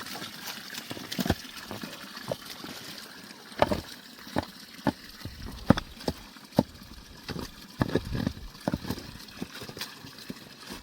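Irregular knocks and clinks, about a dozen spread unevenly, with water splashing and trickling in between.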